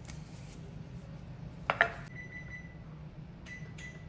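Stainless steel biscuit cutter clinking as it is set down on a wooden board: a sharp double clink about two seconds in, the loudest sound, followed by a short, clear metallic ring, then two lighter clinks with the same ring near the end.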